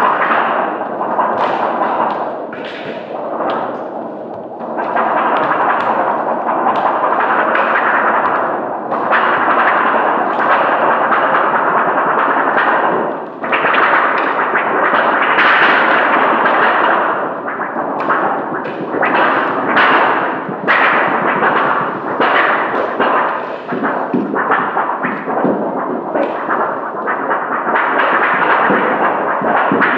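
Loud, dense crackling noise full of sharp cracks and pops, easing briefly twice.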